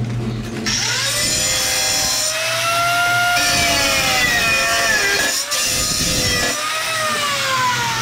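A power tool cutting. Its motor whine bends up and down in pitch as the load changes, over a loud gritty cutting noise, with a brief dip about five and a half seconds in.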